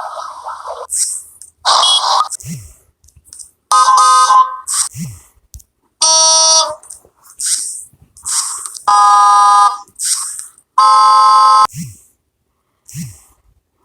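A string of short, separate horn honks, each a buzzy held note of about a second, with brief hissing bursts and quick falling low tones between them. The sounds stop dead one after another, like a series of clipped vehicle sound effects.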